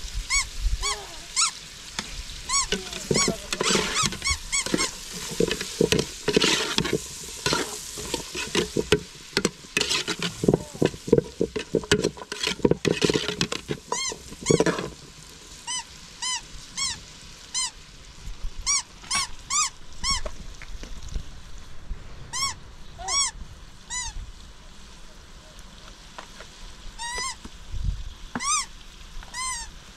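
Metal ladle stirring and scraping diced vegetables frying in an aluminium pot over a wood fire, with a steady sizzle. About halfway through the stirring stops, and short squeaky chirps repeat over the sizzle.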